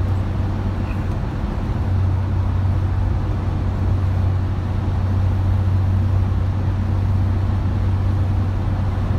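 Steady driving noise of a car on the open road, heard from inside the cabin: an even rush of road and engine sound over a constant low hum.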